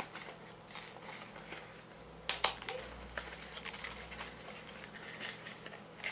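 Faint rustling and light clicks of hands handling small objects, with one sharper click about two seconds in.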